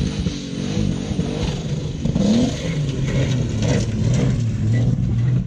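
Turbocharged Ford AU engine in an ex-XF Falcon modified sedan, revving up and down as the car is driven hard on dirt; its pitch climbs sharply about two seconds in, then holds and wavers.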